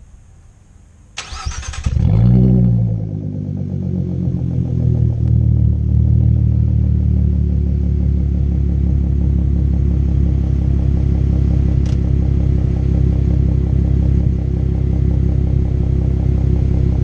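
2016 Ford Mustang's 3.7-litre Cyclone V6, breathing through a Flowmaster Outlaw exhaust with an X-pipe, starting up. A brief crank about a second in, then it catches with a flare of revs that falls away to a steady, loud idle.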